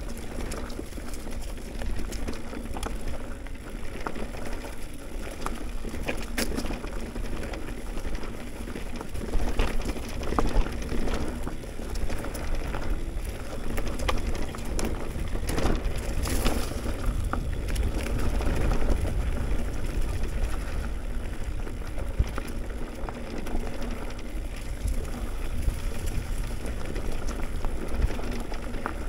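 Mountain bike riding down a dirt trail: tyres crackling over loose dirt and gravel, with scattered clicks and rattles over bumps and a steady wind rumble on the microphone.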